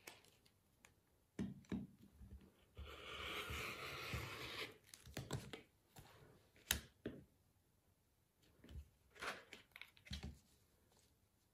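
Rotary cutter rolling along a ruler through layered fabric, a rough cutting noise lasting about two seconds. Sharp clacks and knocks follow as the acrylic ruler is lifted and set down on the cutting mat.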